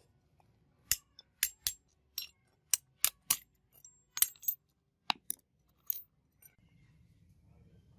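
Small steel parts of a dismantled lighter mechanism clinking and tapping against one another as they are handled and taken apart. A dozen or so sharp, irregularly spaced metallic clicks start about a second in and stop about a second before the end.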